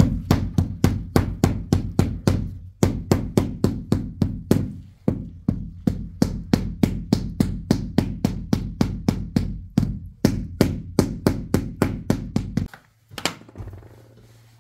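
A fast, even run of heavy thudding strikes, about four a second with a few brief breaks, stopping shortly before the end.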